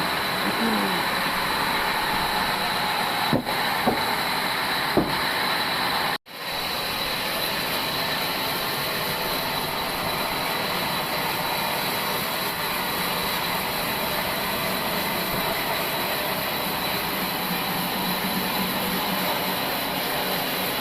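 Old band sawmill running steadily as its blade cuts through a dry log, a constant dense mechanical noise. A few sharp knocks come in the first five seconds, and the sound cuts out for an instant about six seconds in before resuming.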